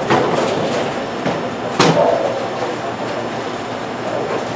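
Tenpin bowling alley din: a steady rumble of balls rolling down the lanes, with a sharp impact about two seconds in.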